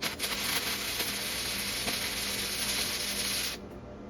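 Flux-core wire welding arc crackling and sizzling steadily, then the arc stops abruptly about three and a half seconds in.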